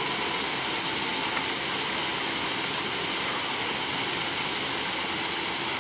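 Steady rushing of falling water from an artificial waterfall, an even noise with no separate splashes or calls.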